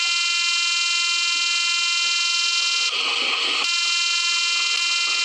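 A steady, buzzing horn tone sounds for about three seconds, gives way for under a second to a rushing noise, returns, and cuts off abruptly at the end.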